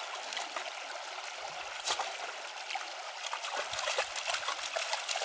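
Shallow creek water trickling and sloshing as a dog wades through it, with small splashes from its steps.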